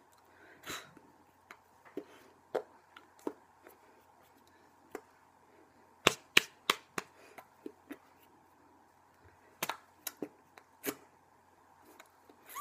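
Irregular sharp slaps and claps of hands striking each other and the body while signing in American Sign Language. There is a quick run of four loud ones about six seconds in and a few more around ten seconds.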